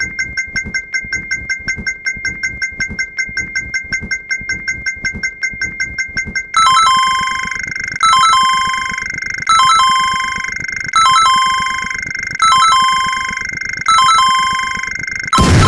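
Synthetic sound-effect tones: a bell-like ding repeated quickly, about five times a second, then about six and a half seconds in a steady electronic tone with a short beeping figure repeating about every second and a half. Just before the end, a louder, noisier sound cuts in.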